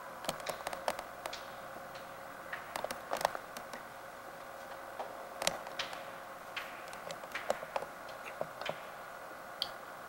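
Scattered, irregularly spaced sharp clicks and taps over a steady faint hiss.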